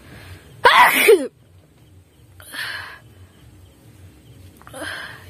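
A woman sneezes once, loudly, about a second in: a short voiced sneeze brought on on purpose by tickling her nose. Two softer, short breathy sounds follow later.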